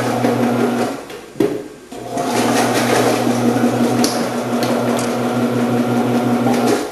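Omcan HLC 300 electric vegetable cutter running with its dicing and slicing discs, dicing potatoes: a steady motor hum that stops about a second in, a single knock, then the machine starting again and running until it cuts off near the end.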